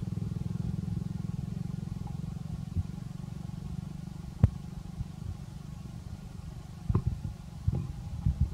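A small engine running steadily with a low, fast-pulsing rumble that fades away over the first half. A single sharp click comes about halfway through, and a few soft knocks near the end.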